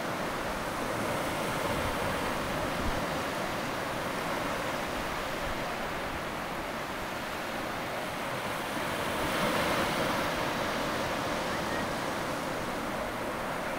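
Steady rushing noise of moving water, without any rhythm, swelling slightly about nine seconds in.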